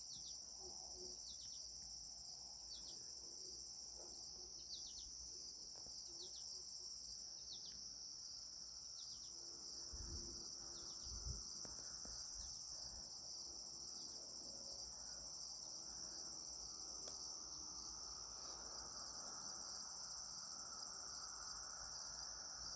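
Steady high-pitched drone of insects, with a run of short, high, falling chirps about once a second over the first half.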